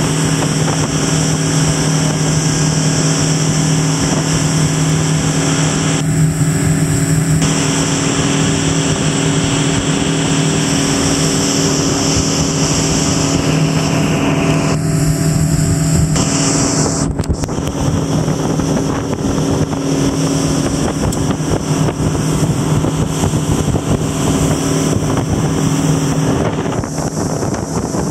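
Mercury outboard motor running steadily at speed, a constant low hum, over the rush of the wake and wind noise on the microphone.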